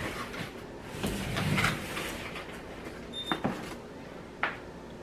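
A cardboard box being opened by hand: its flaps are pulled open with a rubbing, scraping noise, strongest in the first two seconds, then a packing sheet is handled, with a few short sharp clicks and taps.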